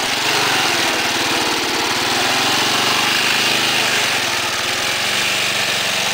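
John Deere Sabre lawn tractor's 11 hp Briggs engine running steadily.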